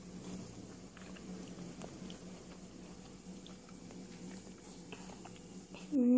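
A person chewing a mouthful of stir-fried pumpkin leaves while tasting them, faint soft wet clicks over a low steady hum. About six seconds in, a voice starts a loud, appreciative 'mmm' hum.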